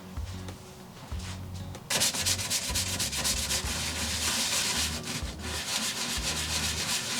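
Sanding on metal bodywork: a loud, rasping scrub that starts abruptly about two seconds in and continues in rapid strokes. Background music with a low bass line plays throughout.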